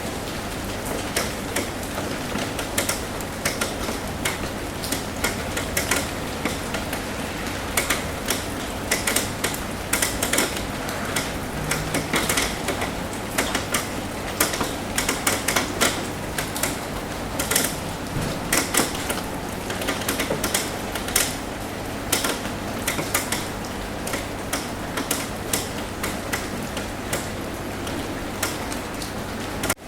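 Raindrops tapping on a roof: a steady patter with many irregular sharp taps, over a low steady hum.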